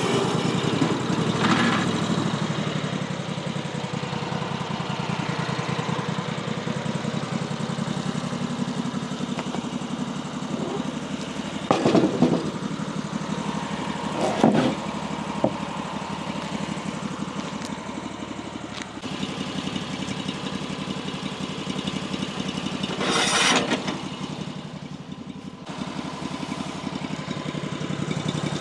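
Woodland Mills HM136MAX bandsaw sawmill running steadily under its gas engine, cutting through a log. A few short, louder noises break in about twelve seconds in, again about two seconds later, and once more near the end.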